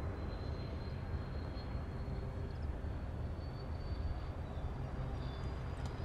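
Boeing 777-200's twin jet engines heard from behind as the airliner climbs away after takeoff: a steady low rumble.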